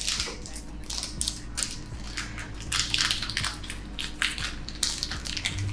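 A Pokémon booster pack's foil wrapper being torn open and crinkled by hand: a run of irregular crackles.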